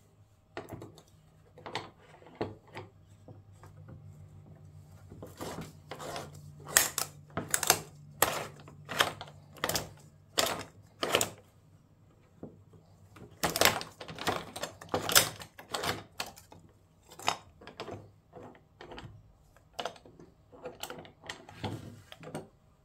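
A SuperTech spin-on oil filter being turned in a hand oil filter cutter, the cutter wheel scoring around the steel can in an irregular run of metallic clicks and scrapes until the end cap is cut free. A low hum sits underneath for several seconds in the first half.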